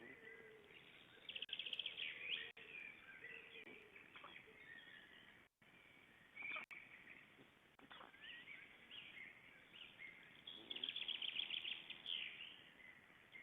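Faint whistles and snorts from a bird's nest, which the uploader takes for either the brooding mother snoring or her chicks calling under her wings. There are two bursts of fast chattering pulses, one about a second in and another near the end.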